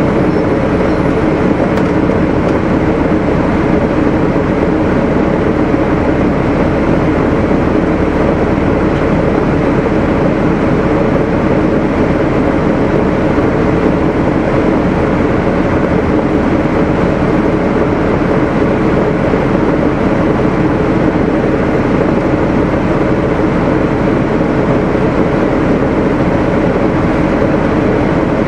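Gillig Phantom 40-foot transit bus's Cummins ISL straight-six diesel idling steadily.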